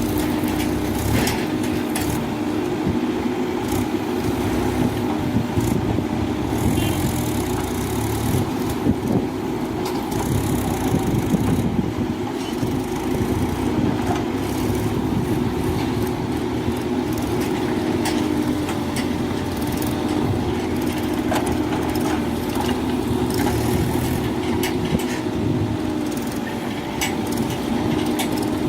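Mahindra backhoe loader's diesel engine running steadily under work, with scattered clanks and knocks throughout.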